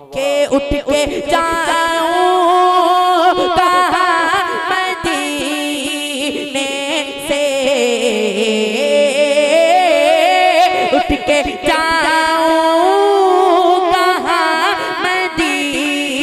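A boy's solo voice singing a naat into a microphone, with long, wavering, ornamented notes that slide between pitches.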